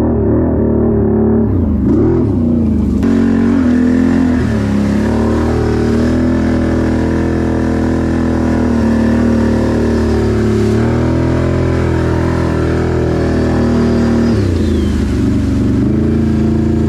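Can-Am 1000 ATV's V-twin engine running under way, mostly at a steady speed, with the revs dropping and rising again in the first few seconds and near the end.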